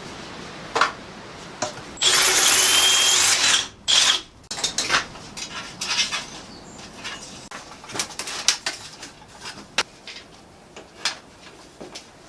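A power tool runs in one short burst of about a second and a half, followed by a string of light knocks and clicks from handling tools or parts.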